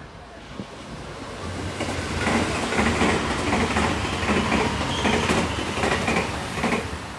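Electric commuter train passing close by, its wheels clacking over the rail joints in a quick, even clickety-clack over a low rumble. The sound builds about two seconds in and fades near the end.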